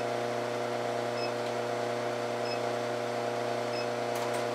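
Induction heater running with a steady electrical hum of several fixed tones, while it heats 9-gauge steel wire to an orange glow in its copper coil. Faint high pips come about every second and a half.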